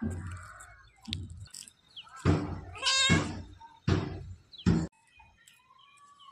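Grey tabby cat meowing about four times in quick succession, from about two to five seconds in; the call near the middle is the longest and loudest.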